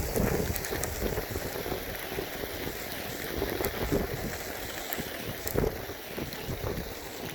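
Strong storm wind buffeting the microphone in uneven gusts, with rain falling and a few scattered sharp ticks.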